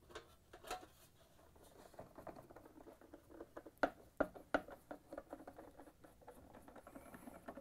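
Screws being hand-driven with a nut driver into a sheet-metal blower cover on a plastic dryer blower housing: faint scattered clicks, ticks and scraping, with a few sharper clicks about four seconds in.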